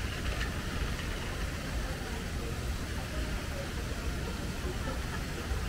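Steady outdoor ambience: a constant low rumble under an even hiss, with no single sound standing out.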